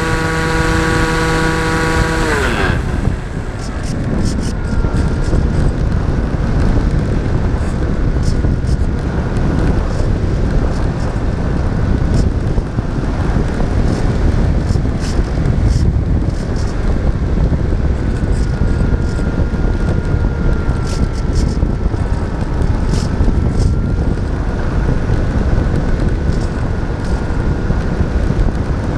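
Model airplane's motor and propeller running with a steady, buzzing hum, heard from a camera on board. About two seconds in it winds down and falling in pitch, as the throttle is cut. Wind then rushes over the microphone as the plane glides, with a faint thin whine underneath.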